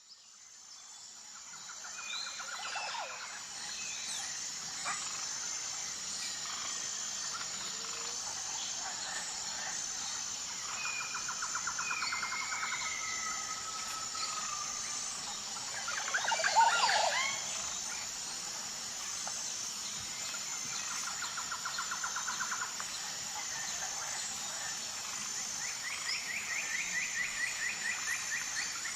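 Forest ambience fading in: several birds trilling and whistling over a steady high pulsing drone, with one louder, sweeping call about sixteen seconds in.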